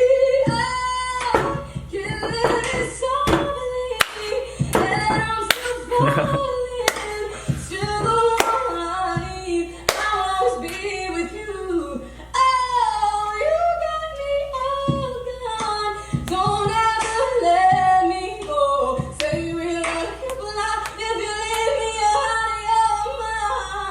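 A woman singing a cover song, holding long gliding notes, over sharp percussive hits that come about once a second.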